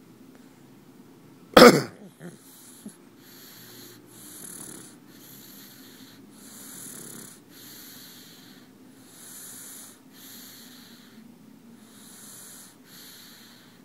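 Pug snoring in wheezy breaths, about one a second. About a second and a half in there is one loud, sudden burst, the loudest sound here.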